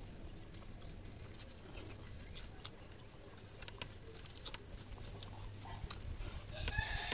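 Faint eating-by-hand sounds: soft scattered clicks and smacks as fingers mix rice and food is chewed. Short high chirps come now and then, with a brief louder call near the end.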